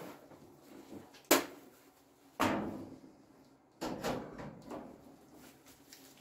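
A sharp knock about a second in, then two heavier clunks that ring out briefly, as welding gear is handled against the steel truck bed. There is no welding arc running.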